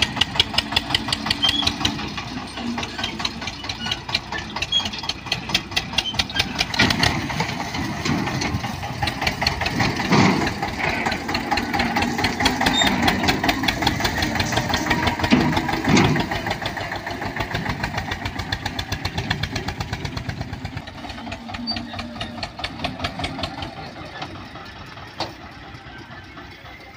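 Eicher 242 tractor's diesel engine running at low speed with an even chugging beat, growing fainter near the end.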